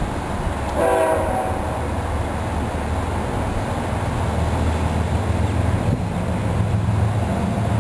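Diesel freight locomotive's air horn sounding one short blast about a second in, a warning for the grade crossing ahead. The locomotive's engine then rumbles steadily and slowly grows louder as the train approaches.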